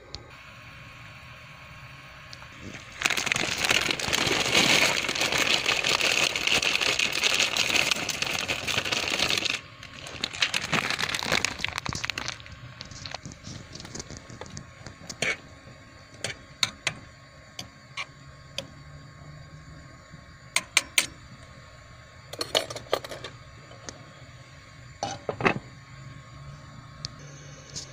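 Cooking at a pot: several seconds of loud rustling noise while dry egg noodles are handled over it, then scattered sharp clinks of a metal spoon and the glass lid against the pot.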